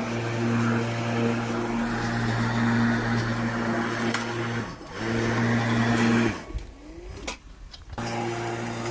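Bosch cordless lawnmower's electric motor running at a steady pitch with the whirr of the spinning blade. It dips briefly about halfway, then stops for about a second and a half with a click before starting up again.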